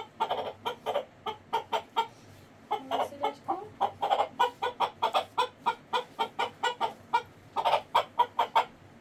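A chicken clucking in a fast run of short repeated calls, about four a second, thinning out briefly a couple of times and stopping near the end.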